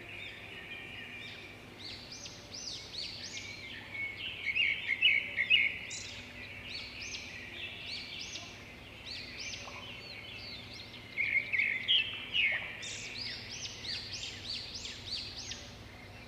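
Several small songbirds chirping and singing over one another, a morning bird chorus of quick, high chirps and short falling notes. Louder flurries come a few seconds in and again about two-thirds of the way through.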